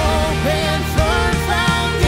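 Worship band song: a man singing lead over guitar and drums, with drum and cymbal hits marking the beat.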